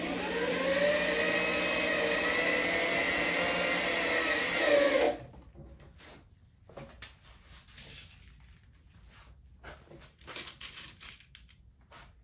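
Handheld power drill driving a self-tapping screw through a barrel's iron hoop into the oak stave. The motor whines steadily for about five seconds, gets briefly louder as the screw seats, then stops. Light handling clicks and knocks follow.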